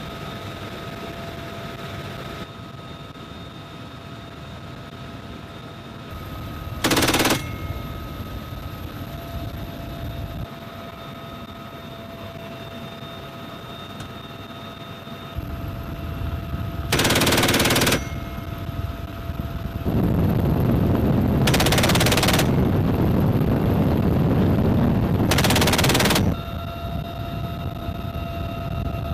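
Door-mounted .50-caliber machine gun on a UH-1Y Venom helicopter firing bursts, heard from inside the cabin over the helicopter's steady turbine and gearbox whine. There is a short burst about a quarter of the way in, a burst of about a second past the middle, and then several seconds of heavy sustained firing.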